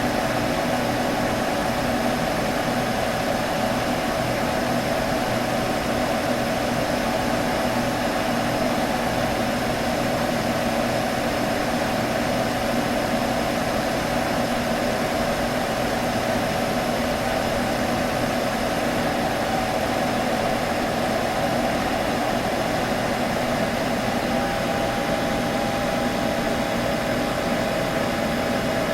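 Computer buzzing steadily: a continuous hum with a hiss over it, and a faint higher tone joining near the end.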